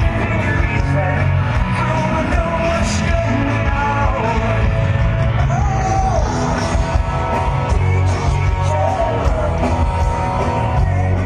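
Rock music with a singing voice.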